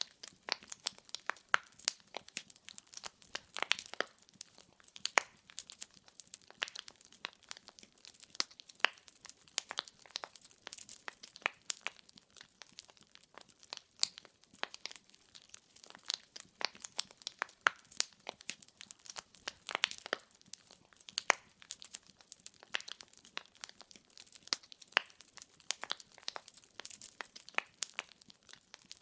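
Firewood logs burning in a fireplace, crackling with many irregular sharp pops and snaps.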